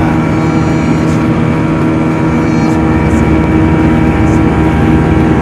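Speedboat engine running steadily at speed, a constant hum with a noisy rush of water under it.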